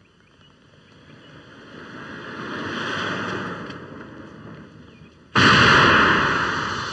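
A rushing noise swells and fades, then a sudden loud blast of noise a little over five seconds in that slowly dies away.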